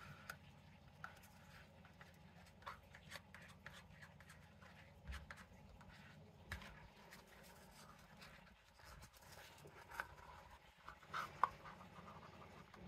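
Near silence over a low steady hum, broken by scattered faint taps and scrapes of a plastic stick and mixing cup being handled. The clicks are louder and closer together near the end.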